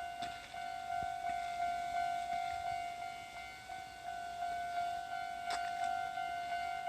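Japanese railroad crossing alarm ringing its repeated 'kan-kan' warning, a steady bright tone pulsing about three times a second.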